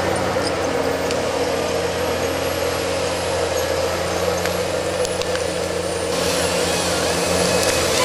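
Forestry harvester's engine running steadily while its head feeds a log through. About six seconds in a higher hiss joins as the head's chain saw starts to cut the log.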